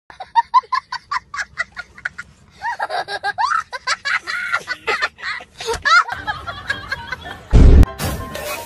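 A young boy laughing hard: a quick run of short 'ha's, then longer wavering cries of laughter. Near the end comes one loud, low thump, and music starts.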